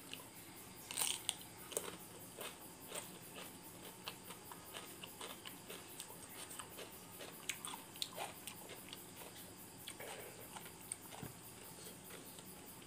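A person biting into and chewing crisp food close to the microphone: a run of irregular crunches, loudest about a second in, thinning out near the end.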